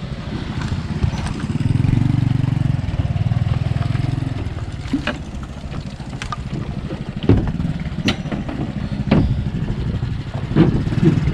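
Small motorcycle engine running with a steady low putter, swelling louder for a couple of seconds near the start, with a few sharp clicks and knocks.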